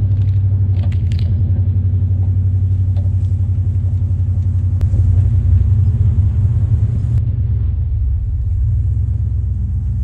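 Compact tractor engine running steadily under load while towing a heavy tree stump on a strap across grass. Its low drone swells briefly about halfway through.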